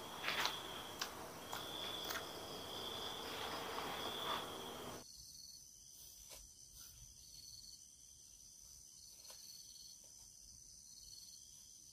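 Night insects chirping in long, steady, high trills, with a few short crunchy clicks of a snack being eaten. About five seconds in it drops to a fainter, thinner insect chorus of short high chirps repeating about once a second.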